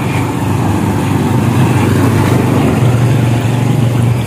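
Small engine running at a steady pitch, louder in the second half.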